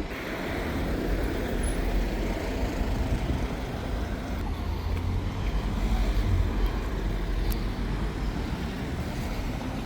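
Road-vehicle noise: a steady low rumble with an even hiss above it, with no distinct sounds standing out.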